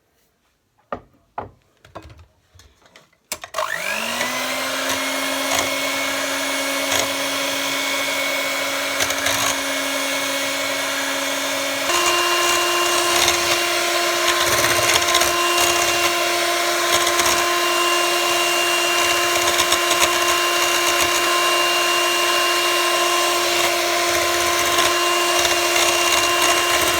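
Electric mixer whisking double cream with sugar. A few light knocks come first, then the motor starts about three seconds in and runs steadily. About halfway through it steps up to a higher speed, and it winds down at the very end as the cream stiffens.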